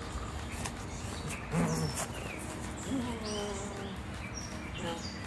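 Songbirds chirping with short, high calls over a low, steady background hum, with a brief louder sound about one and a half seconds in.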